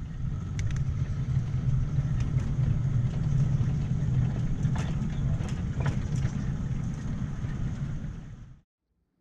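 A 7¼-inch gauge miniature locomotive running along the track: a steady low drone with scattered sharp clicks. The sound cuts off abruptly near the end.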